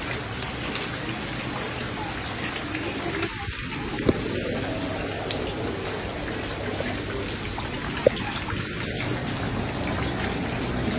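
Steady rain falling on floodwater that covers a narrow lane, with overflow from clogged gutters running through it. Two single sharp taps come about four and eight seconds in.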